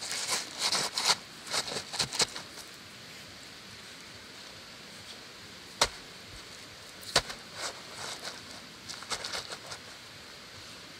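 Rough stones being set by hand into wet mortar: short gritty scrapes of stone on stone and grit, with a sharp click about six seconds in and another about a second later.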